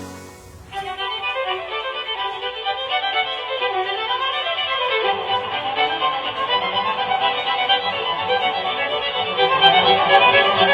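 Violin melody played back through a Hikvision speaker, the sound thin with its treble cut off sharply. It starts just under a second in, after a brief dip.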